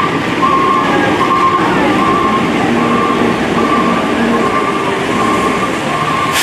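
Fire rescue truck's reversing alarm beeping at an even pace, about five beeps every four seconds, over the steady rumble of its engine and street noise.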